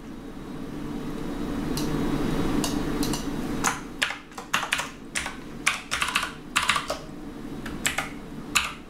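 Keys clacking on a computer keyboard in short irregular runs from about three and a half seconds in, as two config lines are entered. Before the typing, a low hum swells and then fades.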